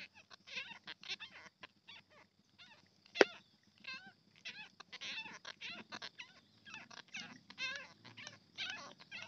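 A run of short animal calls, chirps and wavering trills, repeating on and off. One sharp click about three seconds in.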